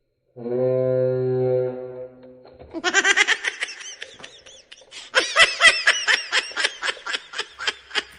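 An air horn blasts one steady, flat-pitched note for about two seconds. It is followed by someone laughing hard in quick, repeated bursts that pause briefly about four seconds in and then pick up again.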